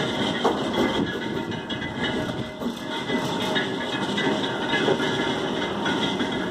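Railroad turntable bridge turning on its circular rail, a steady mechanical running noise with irregular clatter.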